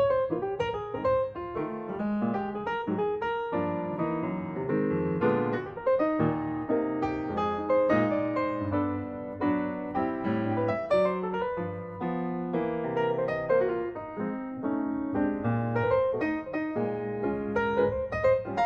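Background piano music: a solo piano playing a quick, continuous run of notes.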